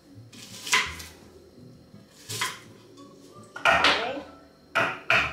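Peeled shallots, garlic cloves and candlenuts dropped by hand into a food chopper's clear bowl: about five short knocks and clinks, spaced out, the loudest cluster a little past the middle.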